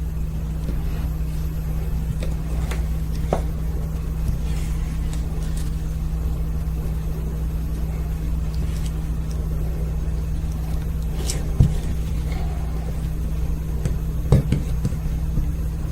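Steady low hum, with a few faint clicks from small parts of a SOG Terminus XR folding knife being handled and fitted during reassembly, the loudest near the middle and near the end.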